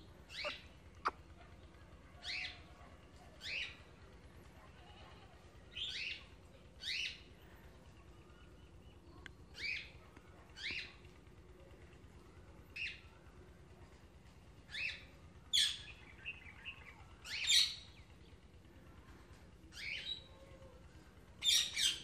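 African grey parrot giving short, high chirps and whistles, one every second or two at an uneven pace, with the loudest calls near the end.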